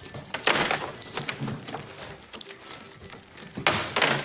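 Hands squeezing and pulling through a mass of slime, with wet crackling and two louder squelches, about half a second in and near the end.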